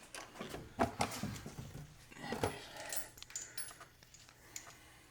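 Scattered light metallic clinks and clicks of a hand tool working on a car battery terminal clamp as it is tightened.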